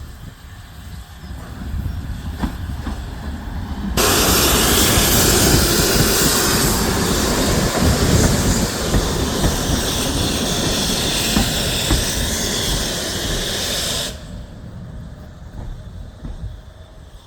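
Steam locomotive arriving with a low rumble that builds, then letting off steam: a loud hiss that starts suddenly about four seconds in, runs for about ten seconds and cuts off suddenly.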